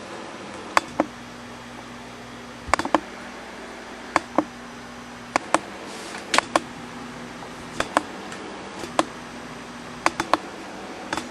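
Light clicks and knocks from kitchen items being handled on a counter, a dozen or so scattered short taps, some in quick pairs, over a steady faint hum.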